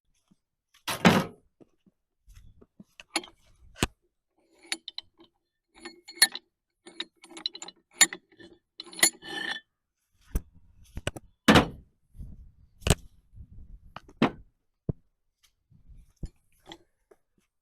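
Metal tools and parts being handled at a workbench: scattered clanks, knocks and clicks, with a loud thud about a second in and a stretch of rattling and scraping from about six to nine seconds in.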